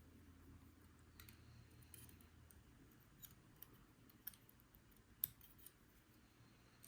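Faint, scattered small clicks, about half a dozen sharp ticks a second or so apart, from tools and pins being worked while the pin stacks of a Paclock 90A Pro padlock are taken out.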